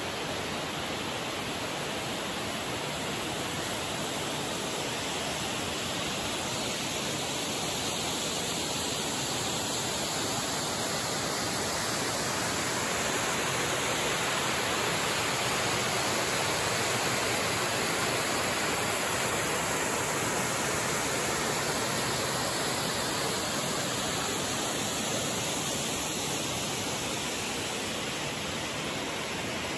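Steady rushing of a waterfall cascading over rock, swelling a little midway.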